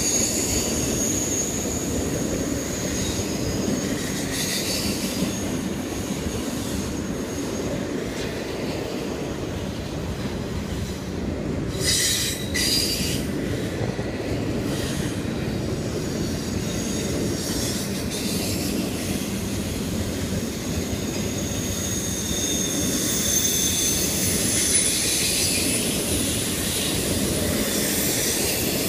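Double-stack intermodal container train rolling past, its steel wheels giving a steady rumble on the rails. High-pitched wheel squeal comes and goes on the curve, and there are a couple of sharp clanks about twelve seconds in.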